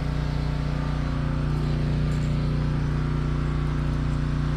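Steady low mechanical hum of an engine or motor running at a constant speed.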